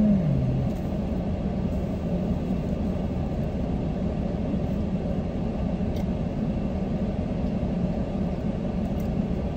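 Steady low rumble of a car running, heard from inside the cabin, with a couple of faint clicks partway through.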